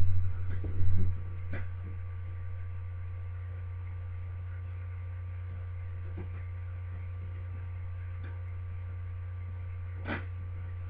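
A steady low electrical hum with a few faint, thin steady tones above it. There are a few soft knocks in the first second and a short click near the end.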